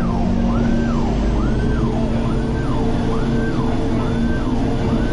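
A siren wailing in quick sweeps, rising and falling about once every three quarters of a second, over the steady drone of a Coast Guard response boat's engines running underway.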